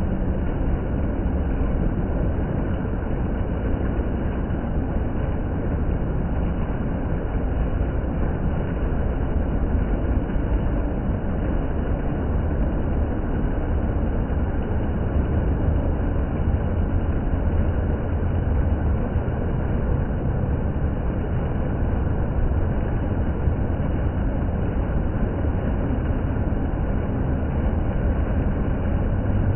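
Water fountain running: a steady, unbroken rush of falling and splashing water.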